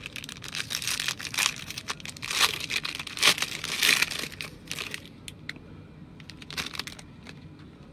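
Foil wrapper of a trading-card pack crinkling and crumpling in the hands, in dense crackles for the first few seconds, thinning to a few scattered crinkles near the end.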